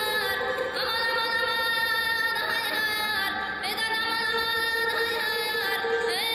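Music: a high singing voice holding long, ornamented notes that step and slide between pitches, over a steady drone.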